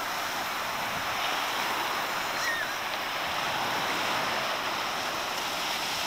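Strong ocean surf washing and breaking around the water's surface, a steady rushing hiss that swells a little in the middle.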